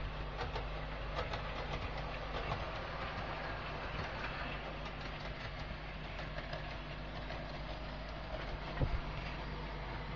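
OO gauge model trains running on the track: a steady motor hum with light, rapid clicking of wheels over rail joints, and a single brief knock near the end.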